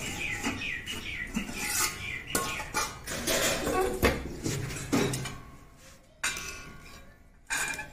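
Stainless steel cooking pot and its lid clanking and clinking as the pot is set down and uncovered, then a steel ladle knocking and scraping inside the pot as the curry is stirred.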